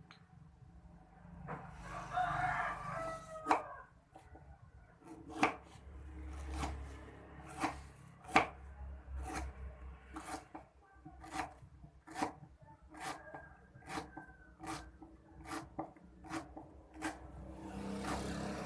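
A knife chopping on a cutting board in irregular single knocks, one or two a second. A rooster crows in the background about two seconds in.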